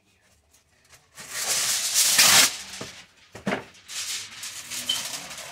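Aluminium foil pulled out of its box and torn off the roll: a loud crackling rustle starting about a second in, then more crinkling as the sheet is handled.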